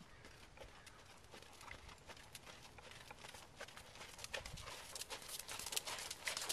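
A ridden horse's hoofbeats on a sand arena, a quick run of soft strikes that grows louder as the horse comes close about four seconds in.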